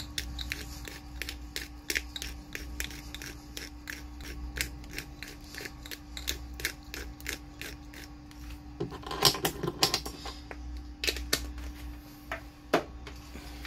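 Pepper mill grinding black pepper, a regular clicking about four times a second, with a louder flurry of clicks and rattles about nine seconds in.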